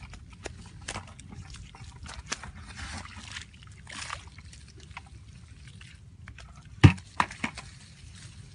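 Bare hands squelching and sloshing in wet mud and shallow muddy water. About seven seconds in comes one loud slap, followed quickly by two lighter ones.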